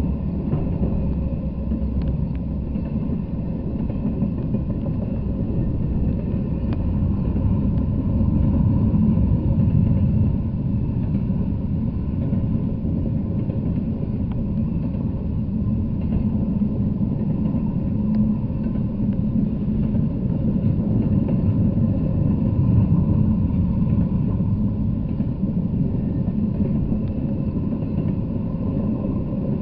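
Intermodal freight train passing: a steady rumble of wheels on the rails, with a few faint clicks, heard through a trail camera's small microphone.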